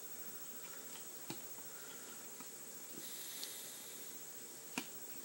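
Faint clicks of hard plastic toy parts as the arms of a Transformers Classics Deluxe Bumblebee figure are worked into place by hand: a few light ones, then a sharper click near the end, over a steady hiss.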